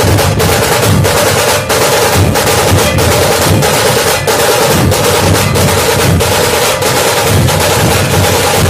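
Dhol-tasha ensemble playing together: many large barrel-shaped dhol drums beating a loud, driving rhythm under the rapid, ringing strokes of stick-played tasha drums, dense and unbroken.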